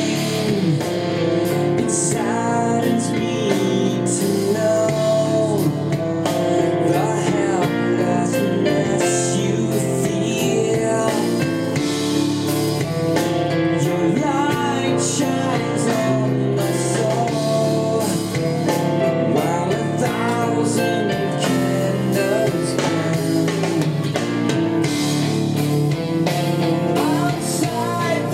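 A song with singing, guitar and drums played through Technics SB-F1 mini monitor speakers.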